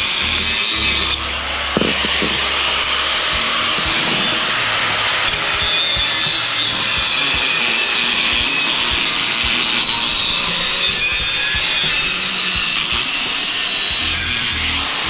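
Power saw blade cutting steadily through metal exhaust parts, a continuous harsh rasp, with background music underneath.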